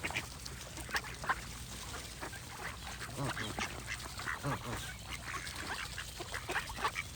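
A flock of waterfowl calling: many short, overlapping calls in quick succession, a few of them deeper than the rest.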